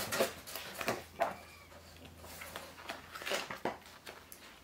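Pages of a paperback graphic novel being leafed through and handled: a series of brief papery rustles and soft taps.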